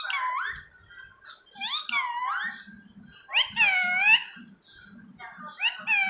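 Indian ringneck parrot giving four high-pitched squeaky calls, each dipping then rising in pitch, about every one and a half to two seconds.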